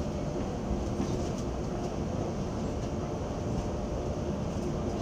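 Steady rumble of airliner ventilation and ground equipment at a Boeing 757's boarding door, with a faint steady hum running through it.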